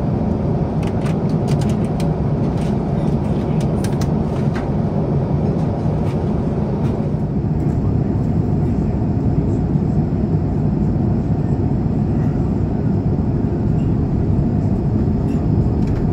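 Steady cabin noise inside an Airbus A350-900 airliner in descent: the low, even rush of airflow and engines. A few light clicks sound in the first five seconds.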